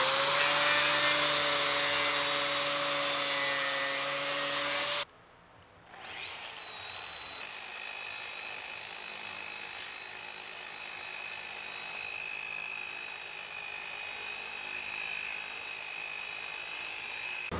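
Angle grinder spinning up and grinding metal with a steady whine, cutting off abruptly about five seconds in. After a brief gap a grinder spins up again and runs on at a steady, higher and quieter whine.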